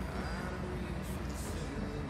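Volvo FH timber truck's diesel engine idling with a steady low rumble, heard from inside the cab.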